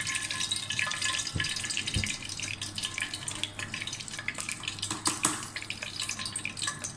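Hot oil in a cooking pot sizzling and crackling as dried curry leaves and dried fenugreek leaves (kasuri methi) fry in it.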